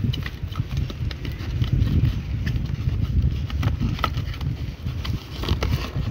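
A continuous low rumble with many small scattered clicks and rustles as a cardboard product box and plastic wrapping are handled.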